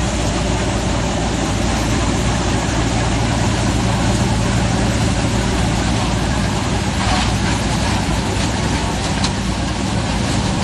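1978 John Deere 4400 combine running steadily while harvesting corn: constant engine and threshing-machinery noise.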